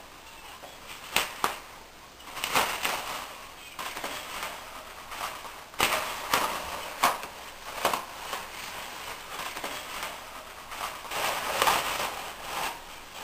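Tissue paper rustling and crinkling as a cat paws, bites and burrows into a torn-out toilet-tissue roll, in irregular bursts with several sharp crackles.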